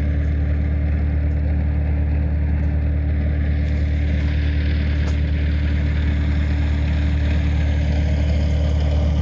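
Bobcat 753 skid-steer loader's diesel engine running steadily with a deep, even hum, the pitch holding level with no revving.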